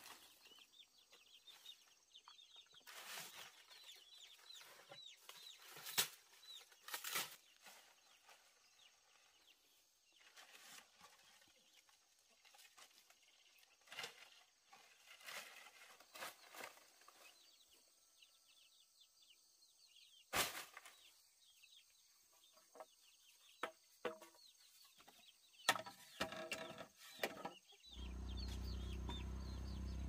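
Chickens clucking now and then among scattered light knocks and clicks. A low steady hum comes in near the end.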